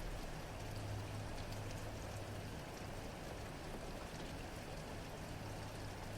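Steady rain falling, an even hiss with faint scattered drop ticks. A low steady hum runs beneath it and is strongest in the first half.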